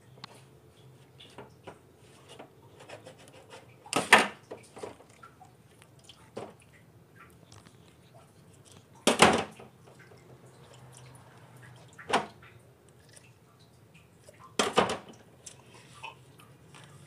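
Wet handling of a raw cuttlefish in a stainless steel sink, with small wet ticks and four sharp clatters of utensils knocking against the steel sink and bowl.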